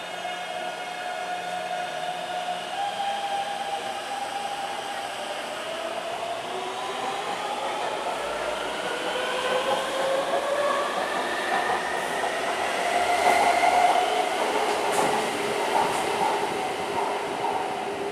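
Taipei Metro C321 train's Siemens GTO-VVVF traction inverter whining as the train pulls away. Several steady tones step up in pitch, then glide upward together as it accelerates. Wheel-on-rail rumble swells as the cars pass, loudest near the end.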